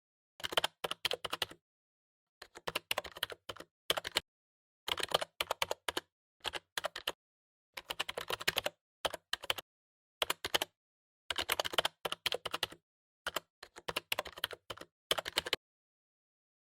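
A computer keyboard being typed on: short runs of rapid keystroke clicks, broken by brief pauses of total silence.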